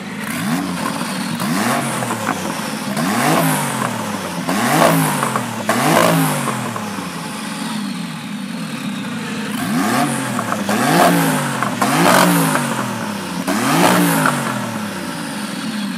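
Gunther Werks Porsche 993-based restomod's air-cooled flat-six revved in a string of sharp throttle blips, each note rising and falling, with a short lull midway.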